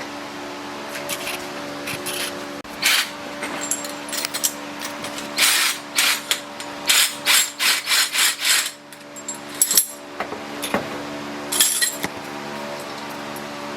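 Tool work on a vehicle's suspension: a run of short rasping bursts, about two a second through the middle, over a steady hum.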